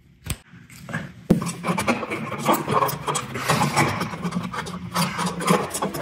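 Screwdriver turning and scraping on a light-switch cover plate's screws, with clicks and rattles as the plate comes off and the switch is pulled out of its wall box. A sharp click just after the start, then steady scraping and ticking from about a second in.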